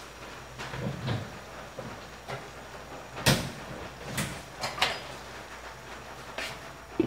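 A few scattered knocks and clinks of kitchen things being handled, the loudest a sharp knock about three seconds in.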